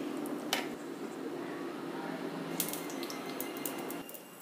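A few faint clicks and clinks of kitchen utensils against dishes, over a steady low hum: one click about half a second in and a short cluster near the three-second mark.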